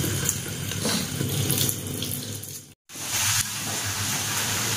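Water running steadily, as from a tap, cutting out abruptly for a moment a little under three seconds in.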